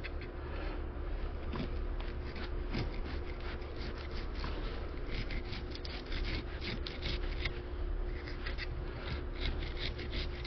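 Knife cutting into a sheepshead being filleted: an irregular run of short scratchy strokes as the blade works through the scales and flesh, coming thicker in the second half.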